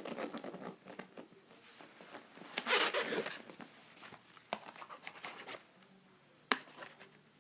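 Close handling noises: scratchy rustling and scraping, loudest in a rasp like a zipper pulled about three seconds in, with a few sharp clicks later on.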